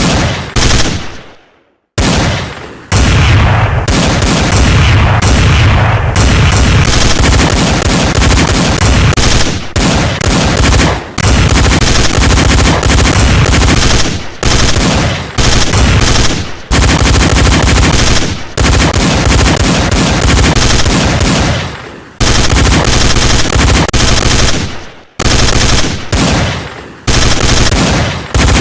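Machine-gun fire sound effect, loud and continuous: long bursts of rapid shots broken by short pauses, with a second-long silence near the start.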